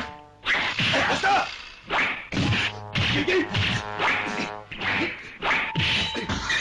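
Cartoon fight sound effects of punches and kicks landing, a rapid run of sharp whacks about two a second.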